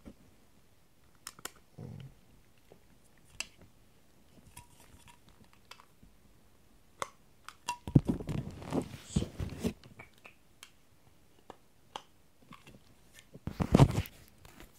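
Close handling noise: scattered clicks and knocks, then two longer bursts of rubbing and scraping about eight and thirteen seconds in, as a plastic figure and its stand are handled and fitted together near the microphone.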